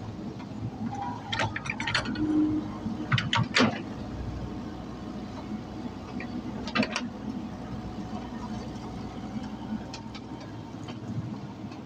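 Komatsu PC78 mini excavator's diesel engine running steadily, with clusters of sharp knocks from the machine working, about two and three and a half seconds in and again about seven seconds in.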